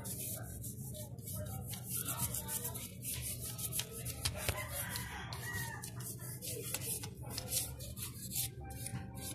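Toothbrush bristles scrubbing the cylinder fins of a motorcycle engine in short, scratchy strokes, with chickens clucking and crowing in the background.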